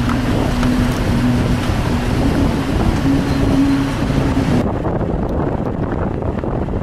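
Vehicle engine and road rumble heard from inside a moving car, with wind buffeting the microphone. A steady engine hum shifts up and down in pitch a few times, then fades into the rumble about two-thirds of the way through.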